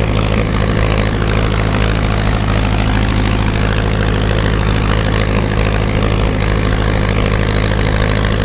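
Farm tractor's freshly rebuilt engine running steadily as the tractor drives along at an even speed, a strong, unchanging low hum.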